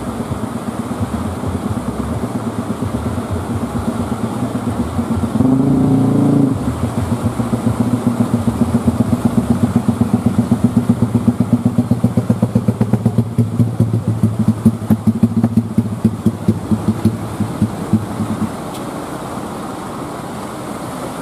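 Inboard engine of a wooden fishing boat running close by with a rapid, even pulsing beat. It surges briefly about five seconds in and cuts off suddenly about three seconds before the end.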